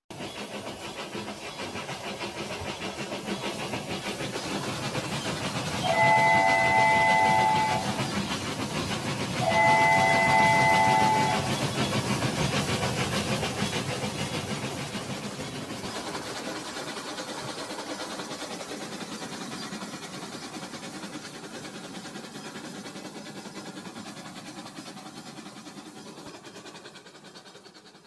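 Battery-powered toy trains whirring and rattling along plastic track, the sound swelling and then slowly fading as they pass. Twice, about six and ten seconds in, a toy train sounds a two-second electronic horn, a chord of several steady tones.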